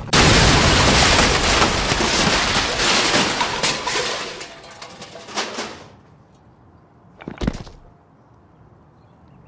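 Sound effect of a bomb exploding: a sudden loud blast that rumbles and crackles, fading away over about five seconds. About seven seconds in, a single short knock.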